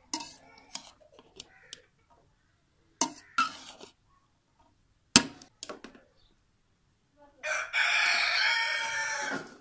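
Metal spatula knocking and scraping against an aluminium cooking pot as cooked rice is stirred and scooped, with a sharp clang about five seconds in. Near the end a rooster crows loudly for about two seconds.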